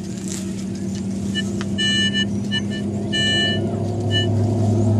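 Teknetics Omega metal detector sounding a series of short beeps as the coil sweeps over a buried target. Under the beeps a vehicle engine hums steadily and grows louder about three seconds in.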